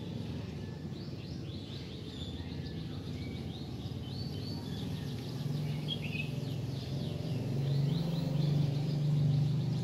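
Small birds chirping in quick, repeated high notes over a steady low background hum, which grows louder in the second half.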